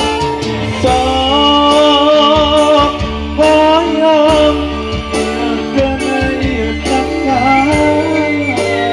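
Live Sundanese pop song: a man sings an ornamented, wavering melody through a microphone over electric guitar, keyboard and kendang drums, with a steady bass line and regular drum strokes.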